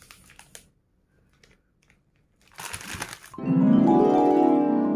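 Faint crinkling of plastic ice-cream wrappers being shaken, then a brief rushing noise and a loud harp-like musical chime that rings on and begins to fade near the end.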